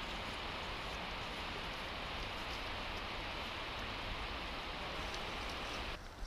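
Steady rushing of water, an even noise with a low rumble beneath it, that cuts off abruptly near the end.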